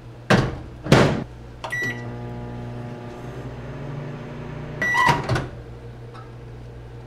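Microwave oven: the door is shut with two loud knocks, a short beep sounds, and the oven runs with a steady hum for a few seconds. About five seconds in, a beep marks the end of the cycle and the door is popped open with another pair of knocks.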